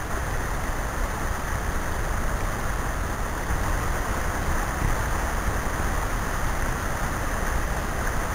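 Steady rush of shallow creek water flowing over rocks and around a gold pan held in the stream.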